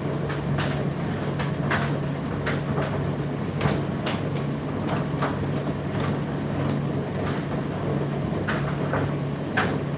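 Indesit IDC8T3 condenser tumble dryer running mid-cycle: a steady motor and fan hum, with irregular clicks and knocks from the load tumbling in the drum.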